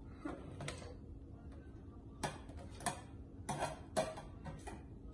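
Metal spoon tapping and scraping against a plate as chopped onion and garlic are pushed off it into a cooking pot: a run of sharp irregular clicks, busiest and loudest from about two to four and a half seconds in.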